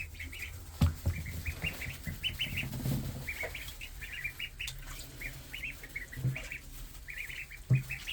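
Three-week-old ducklings peeping: many short, high peeps in quick runs. A few soft thumps are heard among them.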